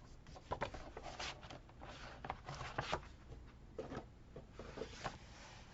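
Paper and sticker sheets being handled on a desk: soft rustling and rubbing broken by small, scattered taps and clicks.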